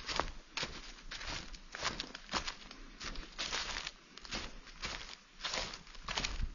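Footsteps in dry fallen leaves, a steady walking pace of about two crackling steps a second.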